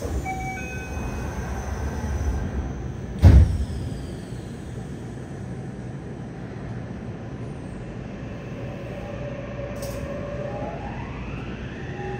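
Inside a Yokohama Municipal Subway 3000R car: a few short chime tones, then the doors sliding shut with a loud bang about three seconds in. Near the end the Mitsubishi IGBT-VVVF inverter whines, rising in pitch as the train pulls away.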